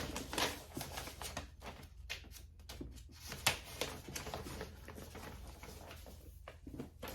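Paper pages of a product booklet being flipped and handled: light rustling with a string of small clicks and taps, the sharpest about three and a half seconds in.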